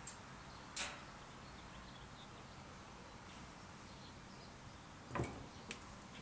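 Light handling noises as wax-dipped candle wicks are hung over a wire rack: a brief brushing swish about a second in, another just after five seconds followed by a small click, over a faint steady hum.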